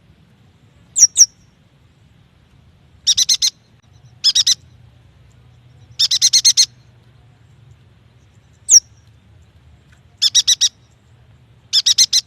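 Yuhina calling: single or paired sharp high notes that drop steeply in pitch, between short phrases of three to six quick repeated notes. The phrases come about every one to two seconds.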